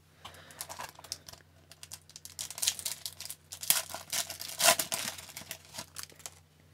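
Foil wrapper of an Upper Deck hockey card pack crinkling and tearing as it is ripped open by hand. The crackling is loudest a little past the middle and stops shortly before the end.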